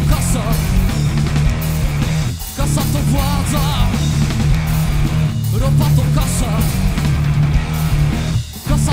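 Live rock band playing: electric guitar, bass guitar and drum kit, with a short break in the riff about every three seconds.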